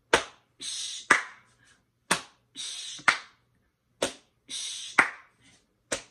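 Hands patting and clapping a steady rhythm, about one sharp strike a second, with a short hiss between some of the strikes.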